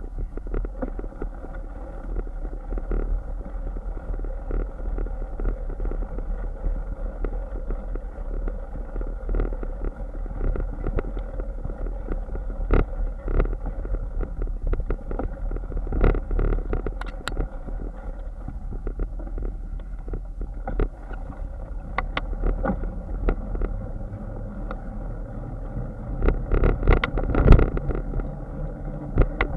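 Bicycle ride heard from a bike-mounted camera: steady rumble of the tyres on rough ground with wind on the microphone, and many small knocks and rattles as the bike and camera jolt over bumps. A run of heavier jolts comes near the end.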